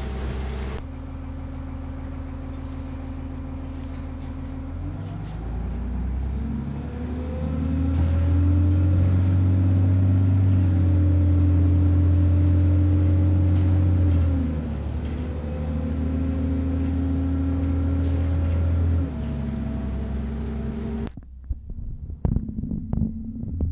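A city bus engine and drivetrain heard from inside the cabin. The bus pulls away and its engine note rises as it picks up speed, then drops back twice as it shifts gear. About three seconds before the end the sound turns muffled, with irregular low thumps.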